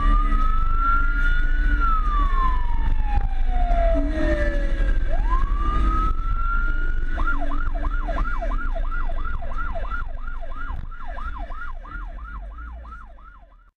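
Police motorcycle siren sounding a slow wail that rises, falls and rises again, then switches about halfway through to a fast yelp of about three sweeps a second, over a low rumble of engine and wind. The sound fades out near the end.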